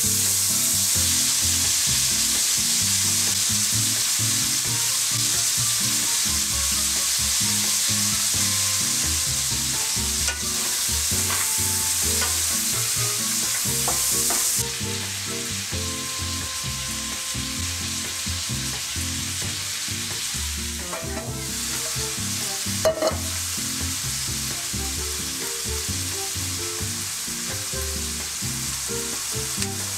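Cubes of chicken and pork sizzling in oil in a stainless steel frying pan as they are stirred with a wooden spatula. The sizzle grows quieter about halfway through, and there are a couple of sharp knocks.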